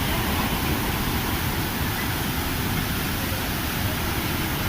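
Steady rushing of a waterfall, water pouring and crashing without a break.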